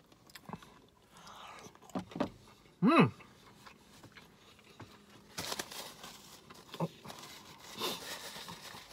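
Mouth sounds of someone eating chicken nuggets: soft chewing and small clicks, a short hummed "mm" about three seconds in, then a paper napkin rustling as it wipes the mouth.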